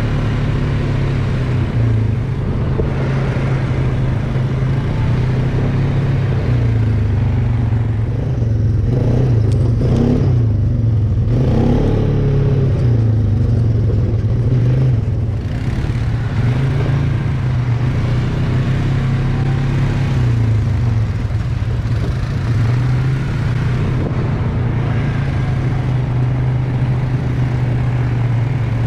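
ATV engine running steadily under way on a dirt trail, its pitch rising and falling with the throttle, with a few brief revs around the middle.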